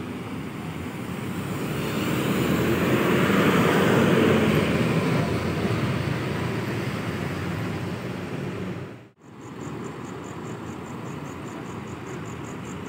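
Diesel engine of a large coach bus pulling away and passing close. It swells to its loudest about four seconds in, then fades as the bus drives off. After a sudden break, a steadier, quieter engine hum continues with a faint fast high pulsing.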